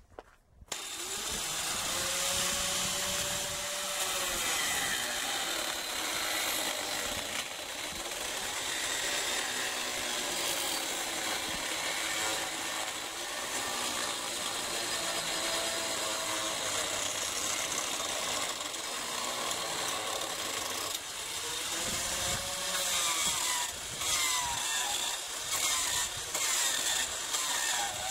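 Electric angle grinder fitted with a chainsaw-chain carving head, switched on about a second in and cutting into a walnut block to hollow out a bowl. The motor's pitch sags as the cutter bites into the wood and recovers as it frees, and near the end the cuts come in short stretches.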